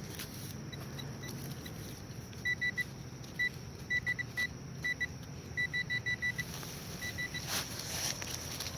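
Metal detector giving short, high-pitched beeps in irregular bursts, faint at first and louder from about two and a half seconds in, stopping about seven seconds in: the signal of a buried metal target in the dig hole. A brief rustle follows near the end.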